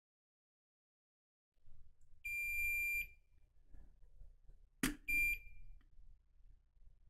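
Digital multimeter's continuity beeper sounding twice, a steady high beep of nearly a second and then a short one, as the probes touch points on the wireless charger's circuit board; the beep signals a near-zero reading, the mark of a short between those points. A sharp click, probe on the board, comes just before the second beep.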